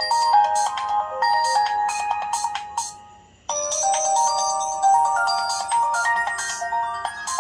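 LG Classic Flip flip phone playing one of its built-in ringtones: a short electronic melody over a beat. It fades out about three seconds in and starts over half a second later.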